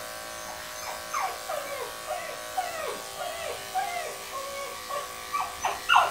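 A dog whining in a string of short falling whimpers, about two a second, louder near the end, over the steady hum of electric grooming clippers.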